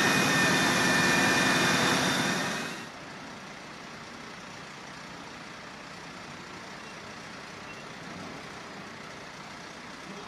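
Loud, steady engine noise with a whine, which cuts off abruptly about three seconds in, then a quieter steady hum of fire engines running at the fireground.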